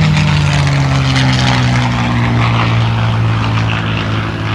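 Piston-engined propeller airplane flying past, its engine drone dropping in pitch over the first second or so and then holding steady.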